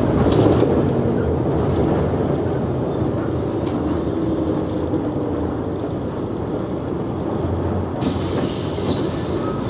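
Mercedes-Benz O345G articulated city bus with its diesel engine idling steadily at standstill. A hiss joins in about eight seconds in.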